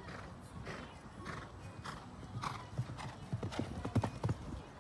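Hoofbeats of a show-jumping horse cantering on a sand arena, in a steady rhythm of about one and a half strides a second, louder near the end as the horse comes close.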